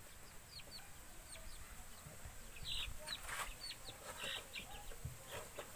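Young chickens peeping: many short, faint, high chirps that fall in pitch, repeated irregularly, with a few soft knocks around the middle.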